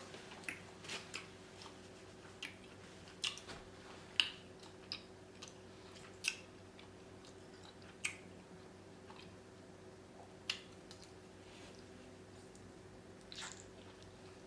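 A person chewing and eating king crab close to the microphone, with scattered sharp wet mouth clicks and smacks every second or so.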